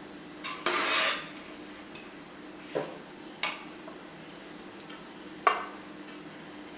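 A kitchen utensil scraping and knocking against a cooking pot while cooked rice is added as the top layer of a fish biriyani. There is a short scrape about a second in, then three separate clinks, the last the sharpest.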